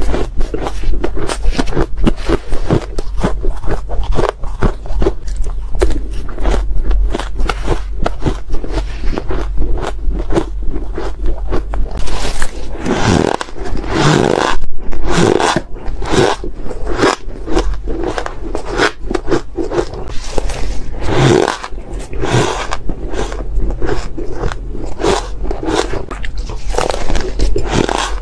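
Close-miked chewing of mouthfuls of shaved ice: dense, rapid crunching and crackling, with a metal spoon scraping and scooping through the shaved ice in the bowl.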